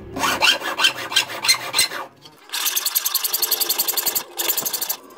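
Round needle file rasping through a hole in a thin black metal mounting bracket: a run of separate strokes for about two seconds, a brief pause, then faster, continuous back-and-forth strokes and one more short run near the end.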